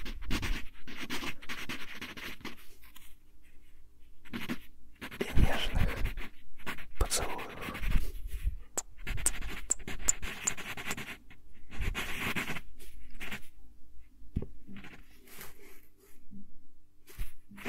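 Wooden pencil writing on lined paper, close-miked: runs of short scratchy strokes with brief pauses between words, along with soft breath sounds near the microphone.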